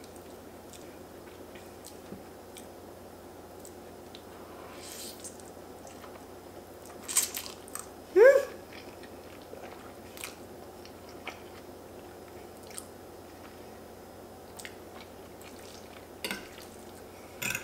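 Close-miked eating: chewing a mouthful of curry-sauced fettuccine noodles, with scattered small mouth clicks. A little before halfway through comes a loud slurp of a noodle strand that ends in a short whistle rising in pitch.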